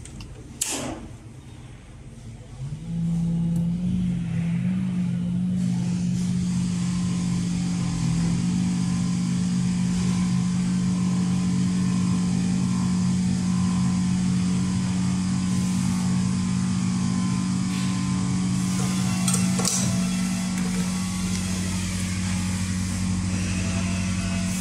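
Tensile (pull) test machine's drive motor running with a steady hum, setting in about three seconds in after a knock, as it pulls on a clamped fibre-optic connector. A couple of clicks come near twenty seconds, and the tone changes shortly after.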